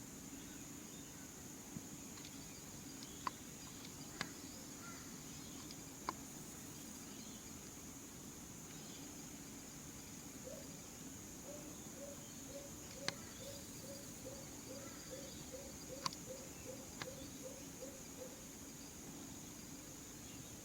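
Outdoor insect chirring, a steady high hum, broken by several sharp, very short clicks scattered through. Midway a run of about fifteen soft, low repeated notes comes at about two a second.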